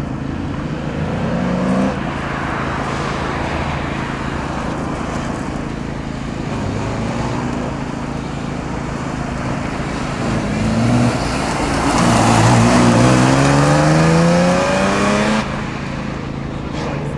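BMW E36 M3's straight-six engine revving hard through a slalom, its pitch repeatedly climbing under throttle and dropping off between bursts. The loudest, longest rising run comes about twelve to fifteen seconds in and cuts off suddenly.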